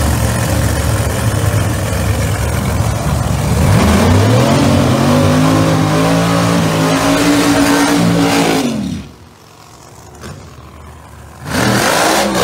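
Drag racing car engine running loud and rough, then about four seconds in climbing steadily in pitch and held at high revs, as in a burnout. The sound drops away sharply for about three seconds near the end, then comes back loud.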